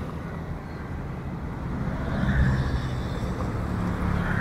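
Road traffic: a motor vehicle engine running as it passes close by, swelling about two seconds in, over a steady low rumble.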